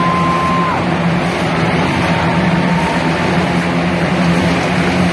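Motorcycle engines running inside a steel mesh globe of death. The riders circle continuously, making a loud, steady drone. A thin high whistle-like tone sounds during the first second.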